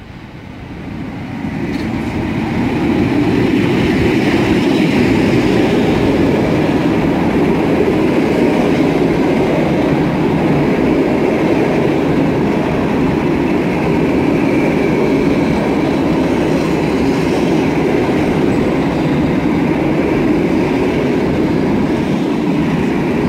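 PKP EU07 electric locomotive and its passenger coaches rolling in along the platform. The sound swells over the first three seconds as the locomotive draws near, then holds as a steady rumble of coach wheels on the rails.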